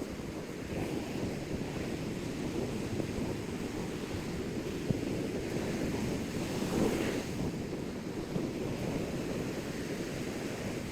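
Ocean surf washing on the shore with wind buffeting the microphone, one wave swelling louder a little past the middle.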